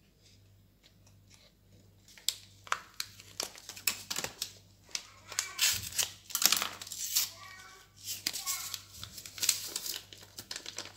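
Hands squeezing and kneading soft margarine on a stainless steel tray: irregular squelching and crackling with small knocks against the metal, sparse at first and busier after about two seconds.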